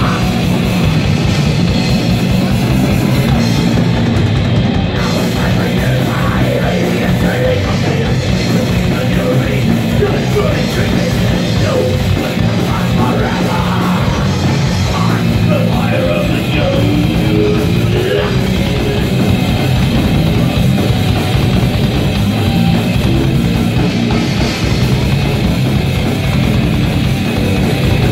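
Live heavy metal band playing loud: electric guitars over a pounding drum kit, heard from among the audience in the club.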